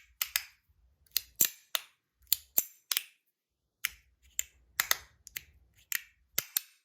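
Zirconium haptic slider fidget being slid back and forth, each stroke snapping home with a sharp metallic click, about two to three clicks a second at an uneven pace.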